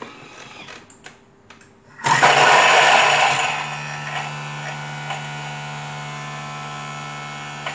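A few clicks from the Thermomix's selector dial, then about two seconds in the motor starts at speed 7, its blade chopping onion, spring onion and garlic. It is loudest for the first second or so, then settles into a steady motor hum.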